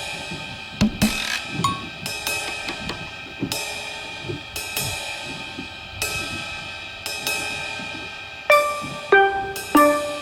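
Background music: a drum kit with cymbal crashes and hi-hat, over pitched keyboard notes, with struck accents every second or so and a cluster of louder hits near the end.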